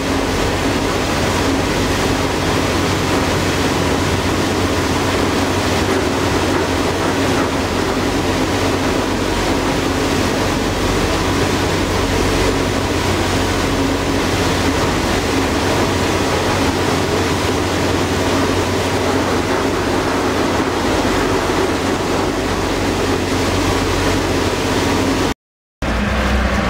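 Passenger ferry's engine droning steadily, with water rushing past the hull. About 25 seconds in, the sound cuts out for a moment, then returns briefly.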